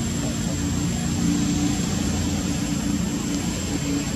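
A steady low engine drone with a wavering hum, under a continuous noisy hiss and a thin, steady high-pitched tone.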